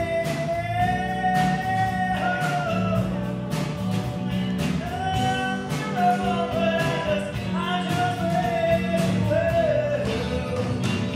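A live blues band plays a slow blues: electric guitars, bass and drums, with a harmonica and a woman singing long, wavering held notes.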